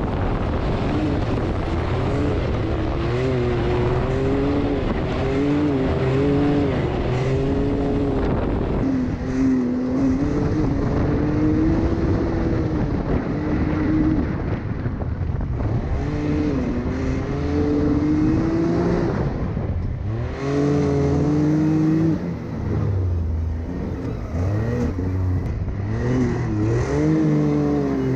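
Can-Am side-by-side's engine running under way, its pitch rising and falling over and over as the throttle is worked, with several brief easings off. Wind noise over it.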